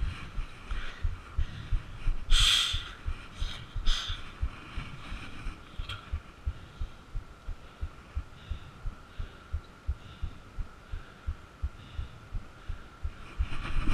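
Footsteps of a person jogging, low thuds about three a second, with two short hissy bursts early in the stretch.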